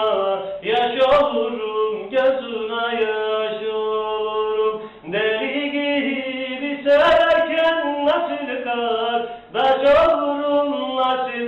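A man singing a Turkish folk song (türkü), holding long notes in phrases with short breaks for breath between them.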